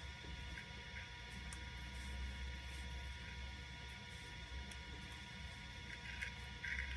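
16mm film projector running: a steady motor hum with a few faint ticks.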